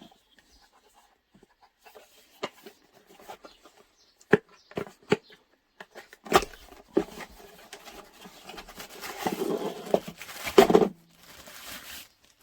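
Packaging being handled: scattered light clicks and knocks, then a few seconds of rustling and rubbing with a couple of louder knocks near the end.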